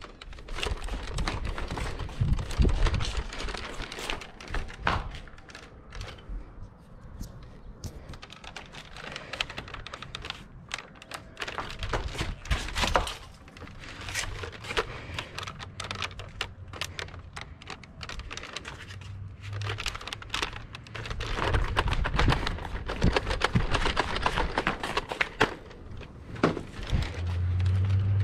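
Plastic Nerf blasters and an orange Nerf magazine being handled and reloaded: many sharp plastic clicks and rattles at an uneven pace. A low steady hum comes in near the end.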